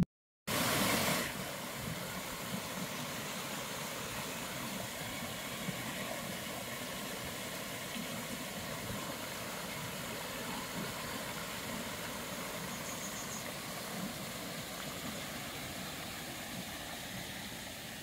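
Water rushing steadily over a small rocky cascade in a woodland stream. It starts abruptly about half a second in, slightly louder for the first second, and eases a little near the end.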